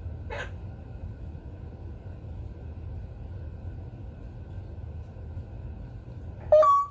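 African grey parrot calling: a brief soft call about a third of a second in, then near the end a loud, sharp call that jumps up in pitch and stops abruptly, over a steady low hum.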